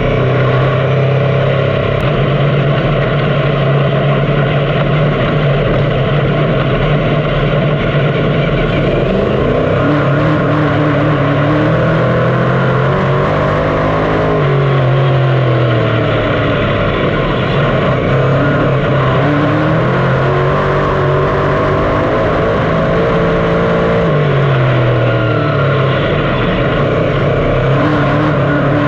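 A 358 small-block dirt modified engine racing around the track at full noise. Its revs climb and then drop back again and again, every several seconds, as it powers down the straights and lifts for the turns.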